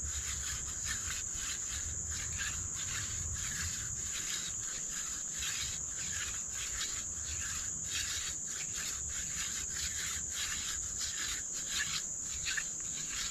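A steady high chirring of crickets, with a run of scratchy rubbing from a dog fennel hand-drill spindle twirled between the palms into a cedar fireboard, building friction heat toward an ember.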